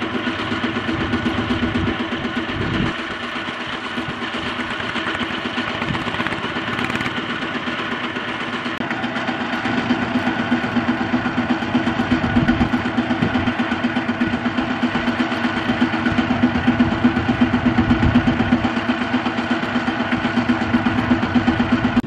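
Kubota ZT155 single-cylinder diesel engine of a two-wheel walking tractor running steadily under load as it pulls a trailer loaded with rice sacks, growing louder about halfway through.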